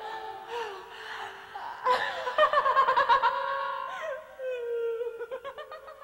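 Several performers' voices, amplified by hidden body microphones, overlapping in gliding, laughter-like calls; about two seconds in they grow louder into rapid repeated yelps, and near the end a fast run of short staccato pulses fades out.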